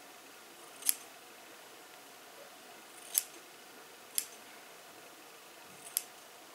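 Metal scissors snipping through the ends of a twist of afro-textured hair: four short, sharp snips a second or two apart.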